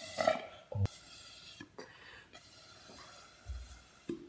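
Air blown into slime gives a short wet bubbling right at the start, then it goes mostly quiet. There is a sharp click just before a second in, a soft low thud about three and a half seconds in, and a few small clicks near the end.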